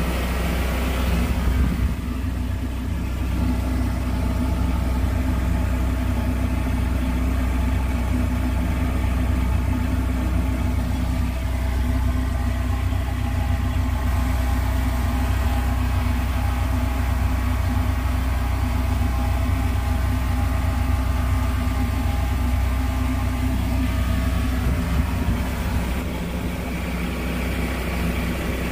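A steady, low mechanical hum of a motor or engine running without change.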